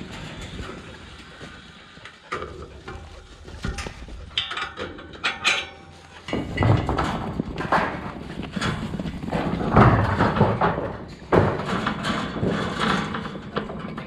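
Sheep being worked through yards: a busy clatter of hooves and knocks, much louder from about halfway in.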